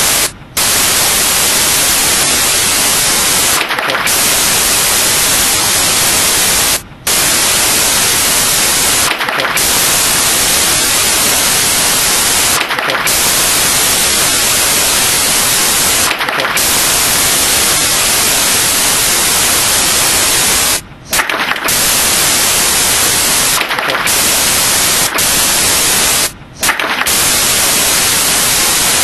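Loud, steady white-noise static hiss, cut by a few brief sudden gaps.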